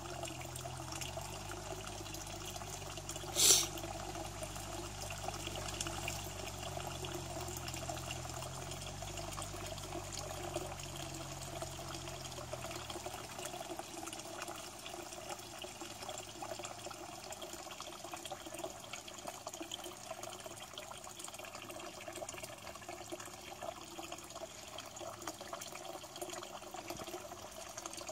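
Water flowing steadily out of a corrugated hose into a pond, a continuous running and splashing at the surface. A sharp short knock about three and a half seconds in, and a low rumble underneath that stops about halfway through.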